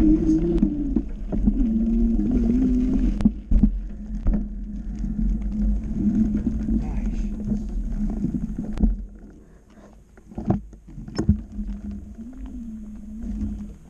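Wind buffeting the camera microphone and a mountain bike rattling over a dirt trail, with a wavering low tone throughout. The rumble drops away about nine seconds in, and a few sharp clicks follow.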